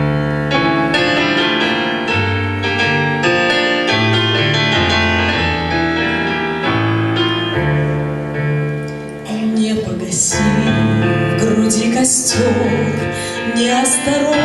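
Grand piano playing a slow song introduction, with a woman's voice coming in singing over the piano about ten seconds in.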